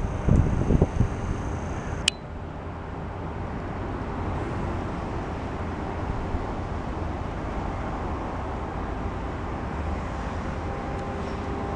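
Steady low rumble of distant road traffic. There are a few low thumps in the first second and a sharp click about two seconds in.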